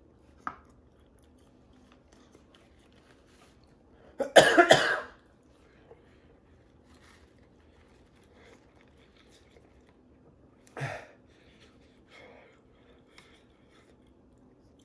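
A man coughing from the burn of Carolina Reaper hot wing sauce: a hard burst of a few coughs about four seconds in, then one weaker cough near eleven seconds.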